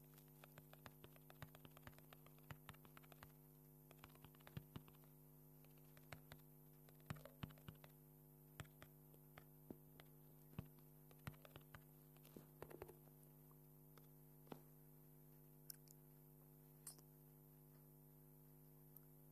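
Faint, irregular taps of typing on a phone's touchscreen keyboard, several a second at first and only a few scattered ones near the end, over a steady low electrical hum.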